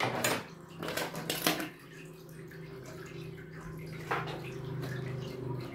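Cardboard packaging knocked and rustled as the inner tray is handled and pulled from the box, with a few sharp knocks in the first second and a half and another about four seconds in. A steady low hum sets in underneath about a second and a half in and grows slightly.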